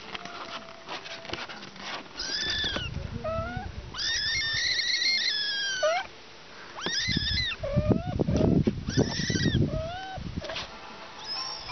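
Young kittens mewing again and again in short, high, thin cries, some rising and some arching in pitch. A low rumbling noise joins them for a few seconds in the middle.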